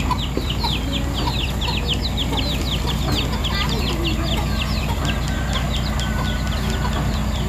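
A JCB tracked excavator's diesel engine running steadily at idle, a low even hum. Over it, rapid high chirps, each falling in pitch, come about four or five a second from birds.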